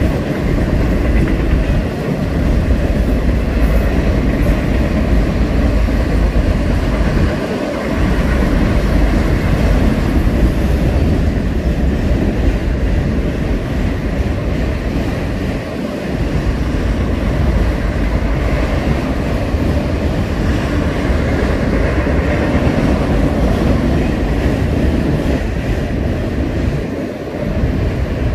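Freight train of autorack cars rolling past, a loud, steady noise of steel wheels running on rail, with a few brief dips in the low rumble.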